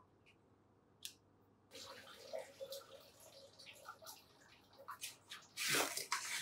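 Water from a lab sink tap running and splashing, with small clicks and knocks of instruments, starting after a quiet first second and a half. A louder rush of water comes near the end.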